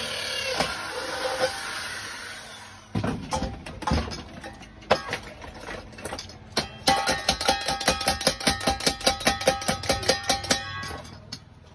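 Electric hand drill running into a steel pot and fading out over the first few seconds, then metal knocking on the pot, turning into a fast series of strikes, several a second, with the pot ringing, which stops abruptly near the end.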